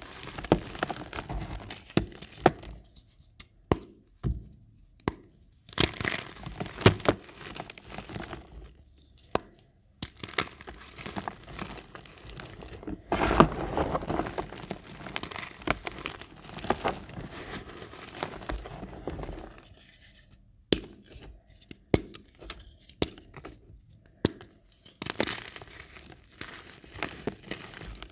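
Reformed gym chalk crushed and crumbled between bare fingers in a tray of chalk powder: dry crunching, with irregular sharp snaps as pieces break, loudest about halfway through.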